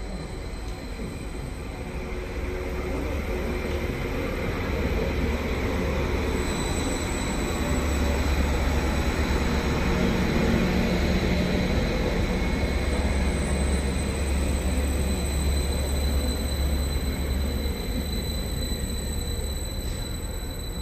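A train running on the track: a deep, steady rumble of wheels on rail that builds to its loudest about halfway through, then slowly eases off. A faint steady high whine runs underneath.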